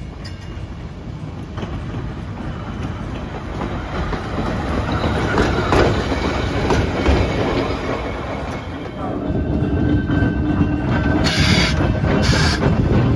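Electric trolley work car 3618 rolling along the track and passing close by, its wheels rumbling and clacking on the rails and growing louder as it nears. In the last few seconds there is a steady hum, with two short hisses near the end.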